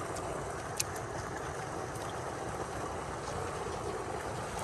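Steady rush of shallow running water, with a few small splashes and one sharp click about a second in.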